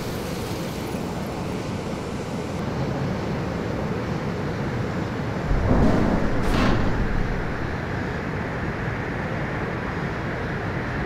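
Steady rushing roar of air around a breaking-up Boeing 747 airframe in a dive. About six seconds in, a louder low surge with a sharp crack, as the tail fin begins to break up.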